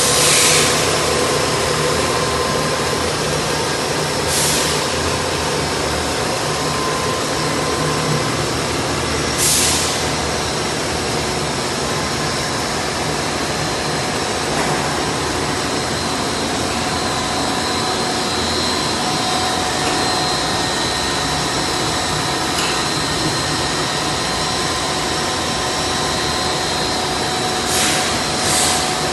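Plastic extrusion line running: a steady machine din from its drives and gearbox, with a few short hissing bursts, one about four seconds in, one about nine and a half seconds in and two near the end.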